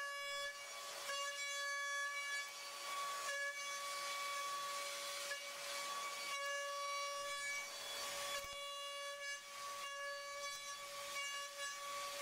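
CNC milling machine cutting aluminium with an end mill: a steady high whine with overtones over a hiss, which breaks off briefly several times as the cutter changes path.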